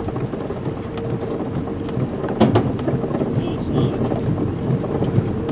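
Storm wind rumbling on the microphone with rain, under a violent tornado's thunderstorm. A faint steady hum runs underneath, and there is a short crackle about halfway through.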